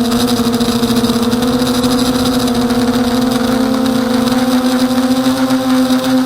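Brushless motors and propellers of an Emax 250 Nighthawk FPV quadcopter in flight, a steady buzzing whine. Its pitch sags slightly, then climbs back from about four seconds in as the throttle changes.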